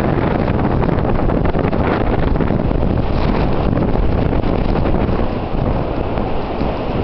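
Strong blizzard wind blowing snow and buffeting the microphone: a loud, continuous deep rumble that rises and falls with the gusts, easing briefly a little past halfway.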